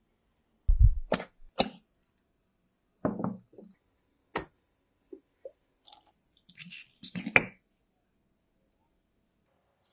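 Glass ramekin knocking and clicking against a ceramic plate while a baked caramel flan is turned out of it. The sounds are a scattering of sharp knocks. The first, about a second in, comes with a low thump. Another cluster of clicks comes around seven seconds in.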